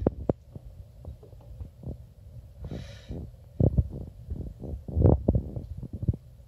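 Puppies nursing and jostling against their mother: a string of soft, low knocks and clicks, with a short snuffling breath about three seconds in.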